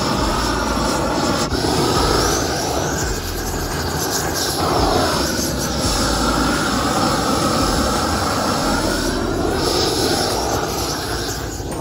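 Handheld propane torch burning steadily, its flame swept over carved wood to singe off the loose, frayed fibres before painting.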